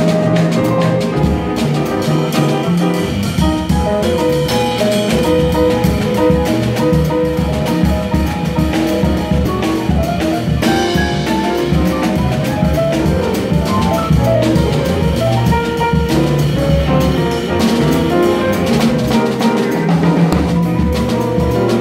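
Jazz piano trio playing live: grand piano, plucked double bass walking a steady line, and drum kit with cymbals.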